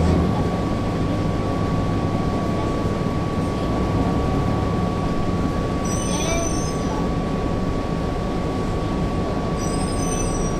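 The rear-mounted Cummins C8.3 inline-six diesel of a 1996 Nova Bus RTS running steadily, heard from the back seats inside the bus, with a constant high-pitched whine over the low rumble. Brief squeals come about six seconds in and again near the end.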